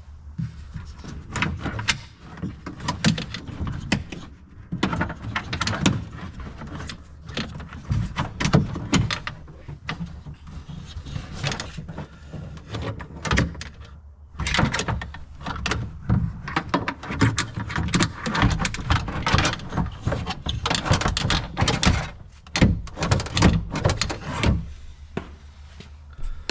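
Irregular clicks, knocks and rattles of a replacement door lock mechanism being worked by hand into a car door's inner cavity, tucked in at an angle behind the window runner, with a short pause about halfway through.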